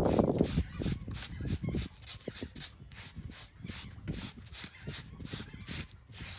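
Wire grill brush scraping the scales off a flounder's skin in quick, repeated back-and-forth strokes, loudest in the first half-second.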